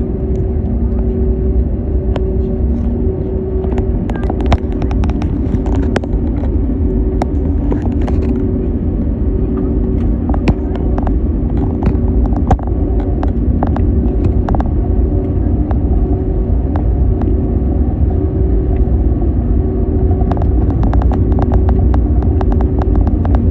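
Steady low rumble and hum inside the cabin of an Airbus A321neo taxiing, its Pratt & Whitney PW1100G geared turbofans running at low power, with two steady hum tones over the rumble. Scattered faint clicks come through on top.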